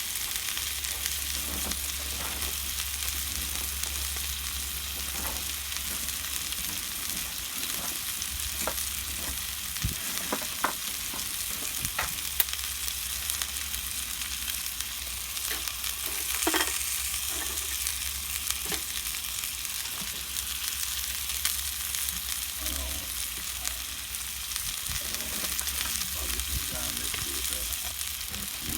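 Steak sizzling over a wood fire on a campfire stand: a steady frying hiss with scattered sharp pops and crackles.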